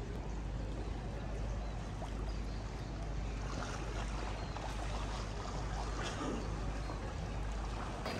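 Steady wash of moving floodwater in a flooded street, with a constant low rumble underneath.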